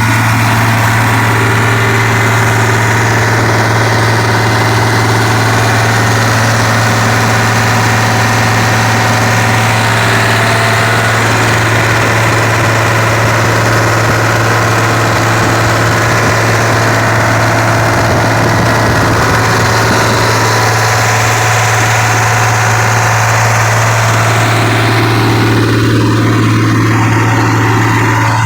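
Small gasoline engine of a portable air compressor running steadily, a strong low hum under constant mechanical noise.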